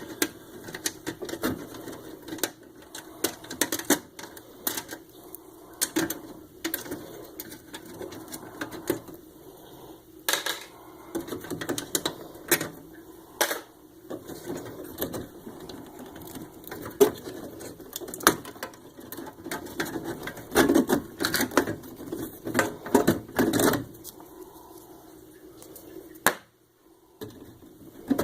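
Irregular clicks, taps and clatter of small metal parts and hand tools as an electronic traffic light controller is taken apart for scrap, busier about twenty seconds in; the sound drops out briefly near the end.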